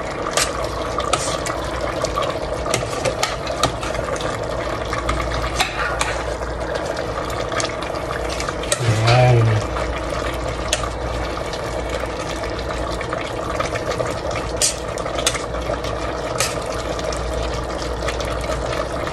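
Metal ladle stirring a thick pork and tomato stew in a stainless steel pot, with scattered clinks and scrapes against the pot over a steady background hum.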